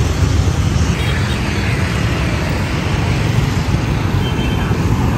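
Steady rumble of city street traffic, motor scooters and cars, heard from among the moving traffic.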